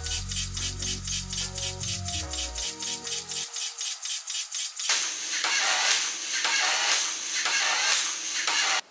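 Background music with a steady beat for the first few seconds, thinning out. From about five seconds in, the Lego Mindstorms NXT motors and plastic gears turn the clock's cube columns: a noisy grinding that swells and fades about twice a second and cuts off suddenly near the end.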